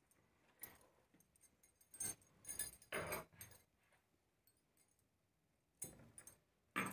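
Blouse cloth being unfolded, flapped out and smoothed flat on a wooden table: a handful of short rustles and soft flaps with quiet gaps between, the sharpest near the end.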